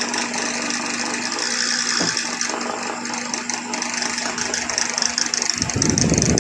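High-speed industrial sewing machine running with a steady hum and a hiss. About five and a half seconds in it turns louder and rougher.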